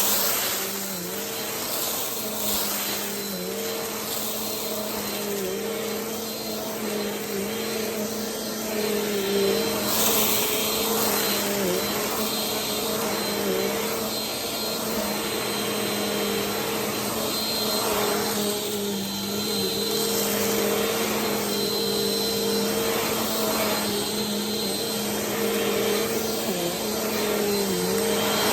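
Vacuum cleaner running steadily while sucking up rice from a rug. The motor hum dips briefly in pitch every second or two as the load changes, over a rushing airflow hiss, with a few louder rushes as grains are pulled in.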